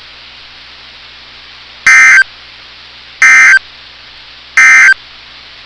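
Three short buzzing bursts of EAS/SAME digital data tones from NOAA Weather Radio, a little over a second apart, over faint radio hiss. These are the end-of-message codes that close the severe thunderstorm warning broadcast.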